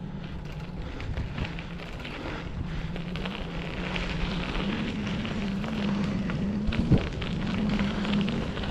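Bicycle tyres rolling over a dirt and gravel two-track trail, with many small clicks from the grit under the tyres, a low steady hum and wind on the microphone. A single knock just before the 7-second mark, as from a bump in the trail.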